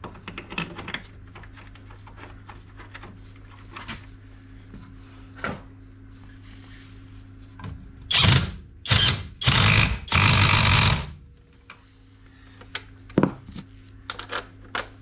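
Metal clinks and knocks of tools on suspension parts, then an impact wrench run in four short bursts, the last and longest lasting about a second, driving in the shock absorber bolts. A steady low hum sits underneath.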